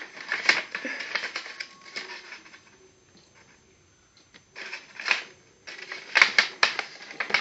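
A sheet of paper being handled and folded in half: rustling and crinkling as it is creased, with a quiet gap of a couple of seconds in the middle.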